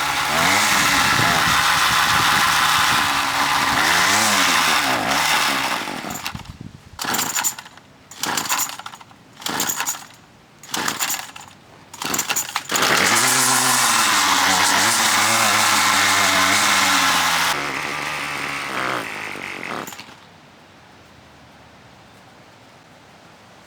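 Gas string trimmer (weed eater) running at high throttle while cutting weeds, its pitch swinging up and down. It is then blipped in about five short bursts, held at full throttle for several seconds, and drops to a lower speed before going much quieter near the end.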